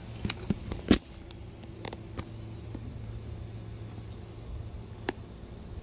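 A few sharp clicks and knocks, the loudest about a second in, over a steady low hum.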